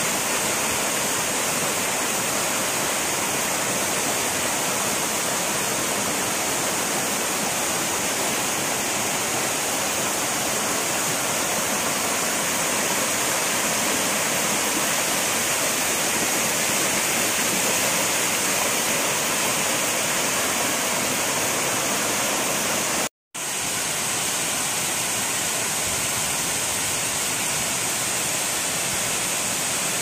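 Steady rush of a tall waterfall cascading over rocks, breaking off for an instant about three-quarters of the way through.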